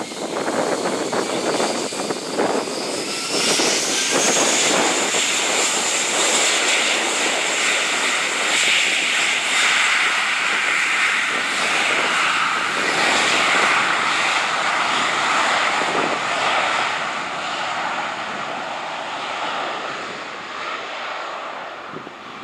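Jet engines of an Airbus A321 (IAE V2500 turbofans) spooling up for takeoff. A rising whine climbs for the first few seconds, then settles into a steady loud engine sound that slowly fades as the airliner rolls away down the runway.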